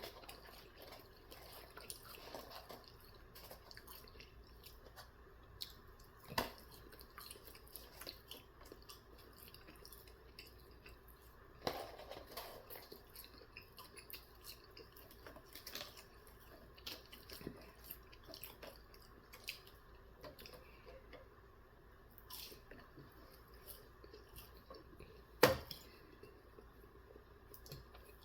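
Chewing and wet eating sounds from sauced chicken nuggets: soft, squishy mouth noises with many small clicks and a few louder taps or knocks, the loudest near the end.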